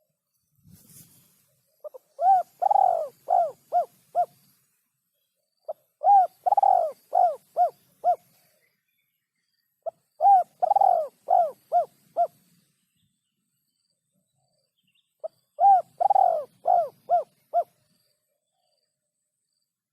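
Spotted dove (tekukur) cooing: four phrases a few seconds apart, each a short note, a longer coo and then a run of short clipped coos.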